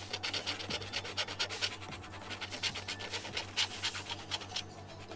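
Scratch-off lottery tickets being scratched, the coating rubbed off in many quick, rapid strokes.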